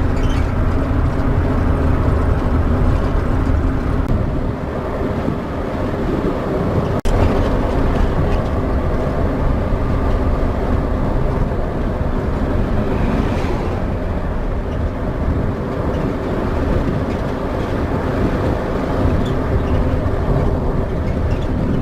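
Converted bus motorhome cruising on the highway, heard from inside the cab: a steady engine drone with road and tyre noise, a brief dropout about seven seconds in.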